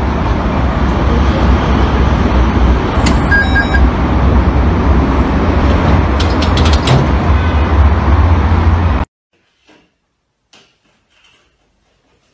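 Loud, steady rumbling din with a brief electronic beep about three seconds in and a few clicks a little later. It cuts off suddenly about nine seconds in, leaving near silence with a few faint taps.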